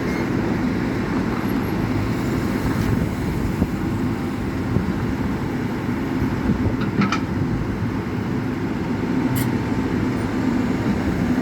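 Steady vehicle noise, a low engine and road rumble with a few faint ticks and clicks.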